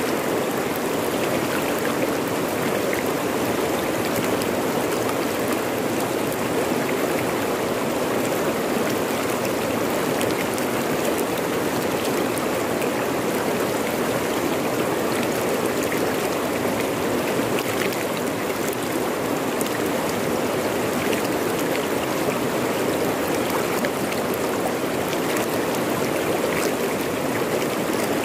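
Fast-flowing river rushing over rocks: a steady, even rush of water with no breaks.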